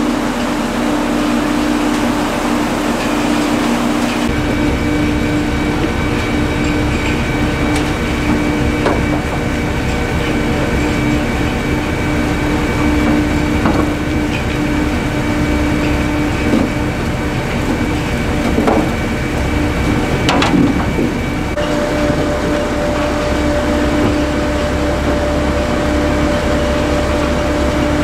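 Potato transfer trailer and its tractor running steadily under load: a constant machine hum with conveyors carrying soil and potatoes, and a few short knocks. The sound changes abruptly about four seconds in and again after about twenty-one seconds.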